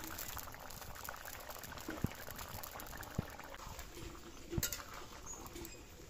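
Capsicum and tomato curry gravy bubbling at a boil in an iron kadai, with a metal spatula stirring it and knocking against the pan three times, the loudest a little past the middle.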